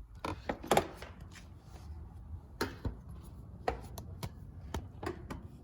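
Irregular knocks, bumps and handling noise as an Eddie Bauer infant car seat is lifted and set into place in the car, with a few sharper clicks among them.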